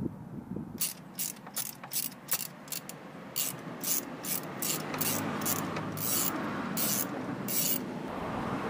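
Socket ratchet clicking in quick back-and-forth strokes, about two or three bursts a second, as it unscrews a spark plug.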